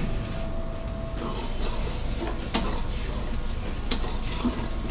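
Steel ladle stirring and scraping thick spinach gravy in a wok, with three sharp clinks of the ladle against the pan and patches of scraping hiss between them, over a steady low rumble.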